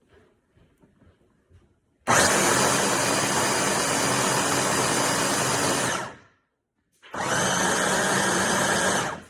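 Qinkada 400 W electric food processor motor running with its blades spinning: it starts abruptly about two seconds in, runs steadily for about four seconds, stops, then runs again for about two seconds. A few faint clicks come before the first run.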